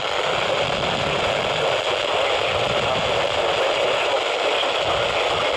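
Steady radio static hiss from a weather radio receiver tuned to a National Weather Service broadcast, heard in a pause between spoken phrases and about as loud as the speech around it.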